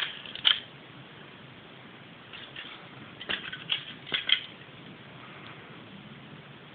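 Small handling clicks and crinkles from a Kinder Surprise egg's foil and plastic toy capsule being worked by hand: one sharp click about half a second in, then a quick run of four or five clicks around three to four seconds in, over a low steady hiss.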